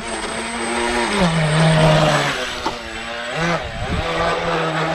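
Electric motor and propeller of a homemade RC V-hull speedboat running at speed across the water, a steady whine that steps down in pitch about a second in, breaks off briefly past the middle, then comes back steady.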